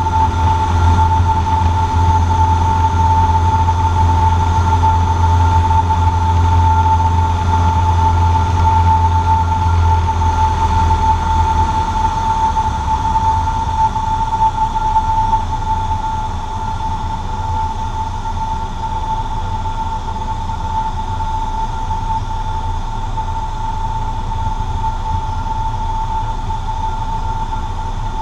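Cessna 150J's Continental O-200 engine and propeller droning steadily, heard inside the cabin, with a steady high whine running through it. The low drone weakens and the level drops a little between about twelve and sixteen seconds in.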